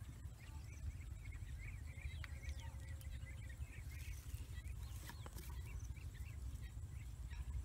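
Low, steady wind rumble on the microphone with many small birds chirping in the background. A few soft clicks and squelches come from hands digging in wet mud, about four to five seconds in.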